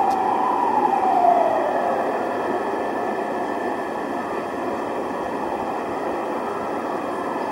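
Emergency vehicle siren wailing, its pitch falling away over the first two seconds, over a steady rush of city street noise.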